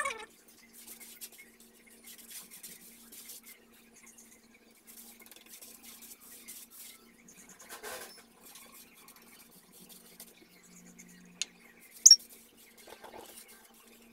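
Paintbrush bristles stroking paint onto a wooden board, soft scratchy brushing in repeated runs of strokes. A sharp click near the end, the loudest sound, with a faint steady hum underneath.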